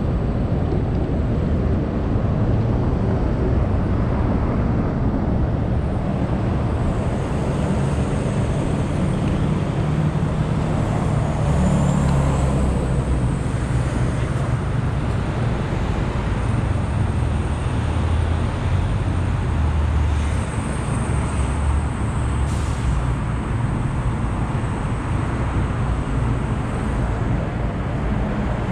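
City street traffic: a steady low rumble of motor vehicle engines and tyre noise.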